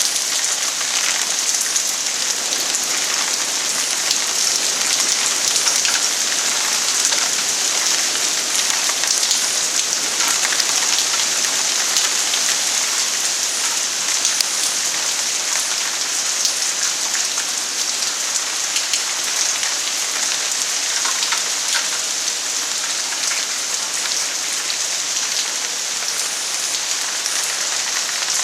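Very heavy rain pouring down steadily, a dense hiss of drops spattering on surfaces.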